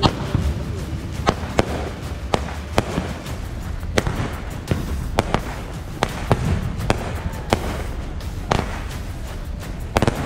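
Pyro Diablo Spinosaurus cake firework firing shot after shot: sharp cracks and pops from launches and aerial breaks, irregularly spaced, roughly one every half second to a second. Background music plays underneath.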